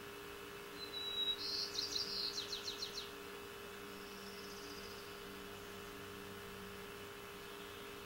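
A small songbird sings one short, high song about a second in: a brief high note followed by a quick trill. A fainter trill follows a few seconds later, over a steady low hum.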